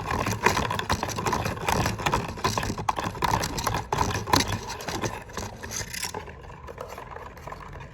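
Runny slime mixed with gel, talc and cream being stirred in a container: quick, irregular wet squishing and scraping that thins out about six seconds in.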